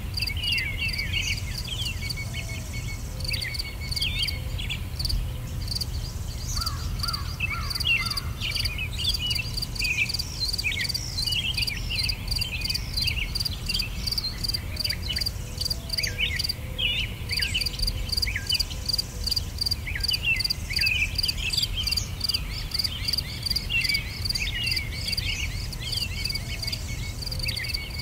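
Birds chirping in many short, downward-sweeping calls over a fast, even, high pulsing like an insect's trill, with a steady low rumble underneath.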